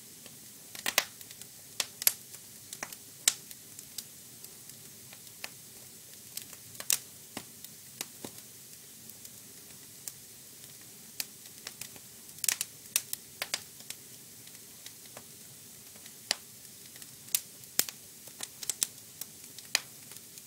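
Fire crackling: irregular sharp pops and snaps, some loud, over a faint steady hiss.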